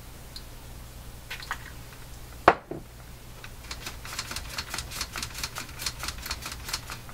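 A sharp knock, then a fast run of small clicks, about four or five a second, as the amplifier's balance control is worked back and forth to spread a shot of WD-40 through the dirty control. A low steady hum runs underneath.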